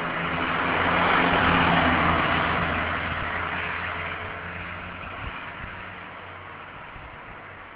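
A car passing by on the street: engine hum and tyre noise that swell about a second and a half in, then fade steadily as it drives away.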